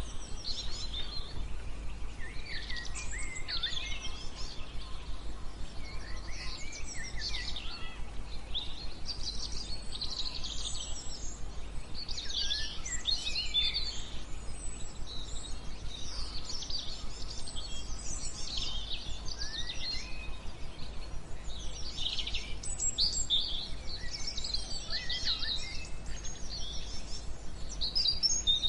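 Several songbirds chirping and twittering in quick, overlapping calls over a steady bed of white noise with a low rumble beneath it.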